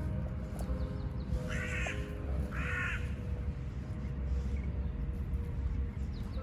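An animal calls twice: two short harsh calls about a second apart, over a steady low rumble.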